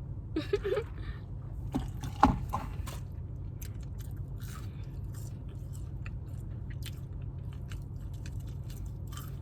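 A person chewing and biting food close to the microphone, with scattered wet mouth clicks and crunches; the sharpest crunch comes about two seconds in. A steady low hum runs underneath.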